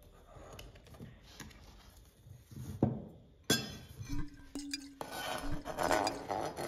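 Kitchen knife clinking against a ceramic bowl and a plastic cutting board, with a couple of sharp knocks, then scraping and clattering from about five seconds in as chopped garlic is scraped off the tipped board into the bowl.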